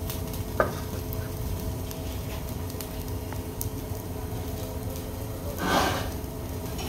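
Steady low hum of a stove burner heating a frying pan of cooking oil, with a single click about half a second in and a short rush of noise near the end.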